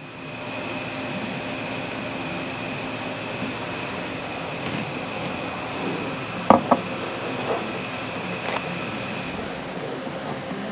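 Electric motor of a bearing-type oil friction test machine running unloaded with a steady hum and a faint high whine that stops near the end. A few short clicks and knocks of the machine being handled come about two thirds of the way through.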